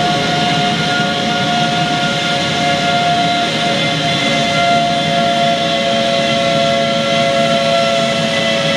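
Boeing 777's GE90-115 turbofan engine running at high power during a ground test run: a loud, steady rush of air and jet noise with several steady whining tones over it.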